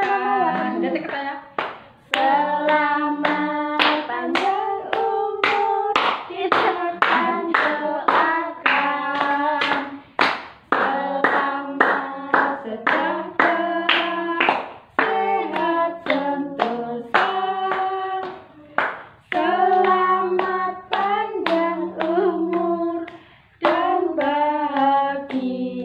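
A family group singing a birthday song together in Indonesian, clapping their hands steadily in time, about two claps a second.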